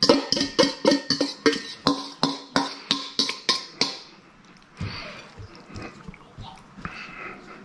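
A metal fork tapping and scraping against a stainless steel mixing bowl while noodles are pushed out onto a plate. There is a quick run of ringing clinks, about four a second, for the first four seconds or so, then softer scraping.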